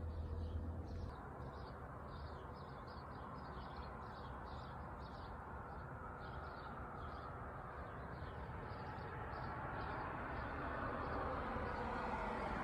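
Outdoor ambience: a regular series of short high chirps, about two or three a second, that dies away about nine seconds in, over the noise of street traffic that grows louder near the end as a vehicle approaches.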